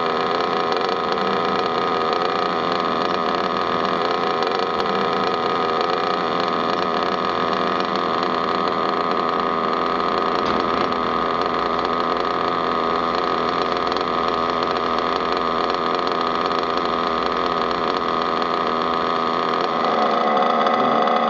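Small glow-fuel model engine running steadily at a constant speed, a little louder near the end.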